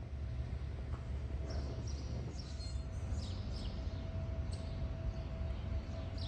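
Outdoor ambience: birds chirping in short, high, falling calls over a steady low rumble and a faint steady hum.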